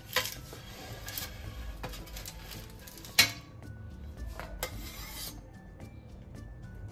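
A wooden spatula scraping under a baked pizza on a parchment-lined metal baking tray as the pizza is moved onto a steel plate, with a sharp metal clank about three seconds in and a short scrape a little before five seconds.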